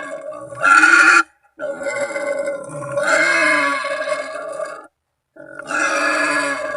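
Wild boar squealing: harsh, drawn-out cries. One ends about a second in, a long one follows, and another starts after a brief silence near the five-second mark. It is the kind of call a boar uses to summon companions or rivals, and hunters play it as a lure.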